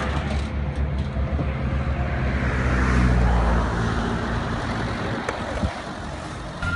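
Car engine and road traffic noise, a steady low rumble that swells about three seconds in and then eases off.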